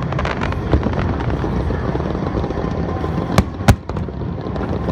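Aerial fireworks display: a continuous rumble and crackle of bursting shells, with two sharp bangs about a third of a second apart a little over three seconds in.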